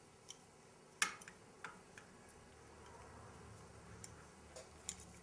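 A few faint, scattered metal clicks and taps of hand tools and parts being handled on a motorcycle cylinder head, the sharpest about a second in.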